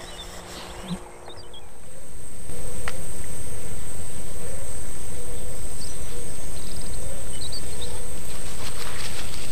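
Outdoor ambience at a mangrove-lined pond that swells up about two seconds in: a steady high insect trill and a few brief bird chirps over a steady low rumble.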